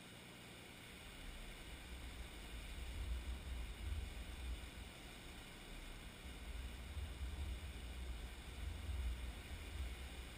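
Wind buffeting the microphone: an uneven low rumble that builds about a second in, over a steady faint hiss.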